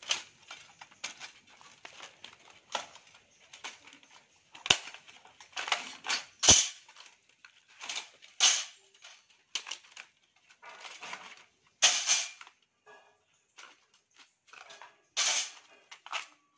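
Steel E and I laminations of a step-up transformer core being pried and knocked loose with a thin blade: irregular sharp metallic clicks and taps, with several louder strikes.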